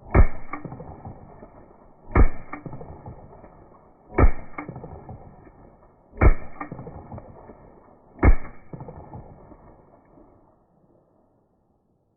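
Five slowed-down gunshots from a Freedom Ordnance FX9 9mm AR-style pistol fired in quick succession, each stretched into a low boom with a smaller second crack just after it and a long ringing fade. They are evenly spaced about two seconds apart, and the last fades out a couple of seconds after the final shot.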